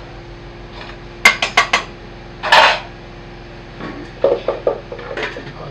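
A spoon clinking and scraping against a metal cooking pot while stirring: four quick clinks about a second in, a longer scraping clatter around two and a half seconds, then another run of clinks near the end.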